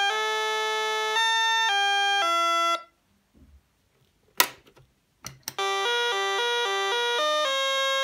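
Sonata-1 electronic doorbell chime playing a melody of steady electronic notes, which stops about three seconds in. After a short silence broken by a couple of clicks as its side switch is worked, a new melody of quicker notes starts.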